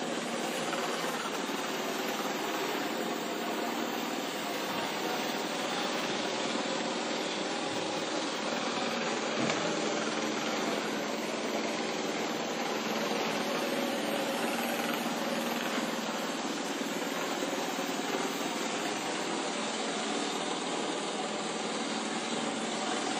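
Small electric motor and suction fan of a home-built robot vacuum cleaner running with a steady whir, with a few soft low knocks a third of the way in.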